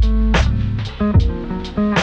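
Background music with a steady beat: plucked guitar over bass and a drum kit.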